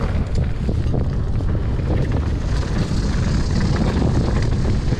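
Mountain bike riding fast down a dirt trail: heavy wind noise on the camera's microphone over the steady rumble and rattle of the tyres and bike on the ground.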